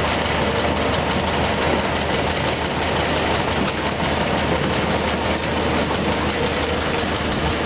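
Volvo EC210B excavator's diesel engine running steadily, with an even low tone and no change in speed.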